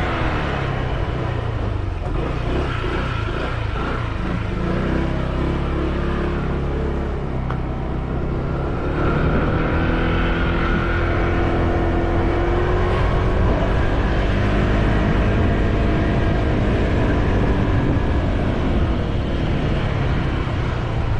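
Motorcycle engine running as it is ridden, its pitch rising and falling with changes of speed.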